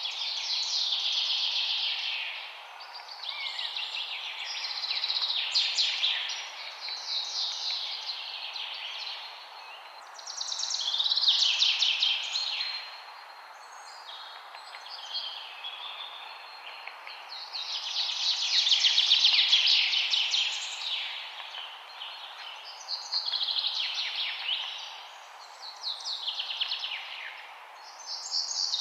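Songbirds singing: high trilling song phrases, each a couple of seconds long, following one another every few seconds over a steady background hiss.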